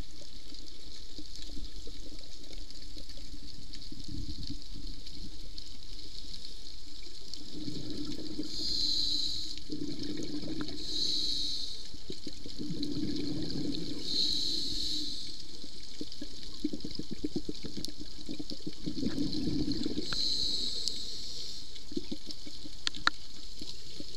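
Scuba diver breathing through a regulator underwater: about four breaths, each a burst of bubbling exhaled air alternating with a hissing inhale, over a steady underwater hiss.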